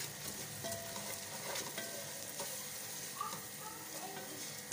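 A tomato-and-spice masala sizzles steadily as it fries in oil in an aluminium pressure cooker. A wooden spatula stirs and scrapes through it, with small squeaks and clicks. A sharp ringing knock comes right at the end.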